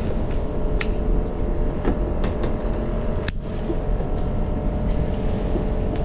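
Boat engine running steadily, with a few sharp clicks over it, the loudest just past three seconds in.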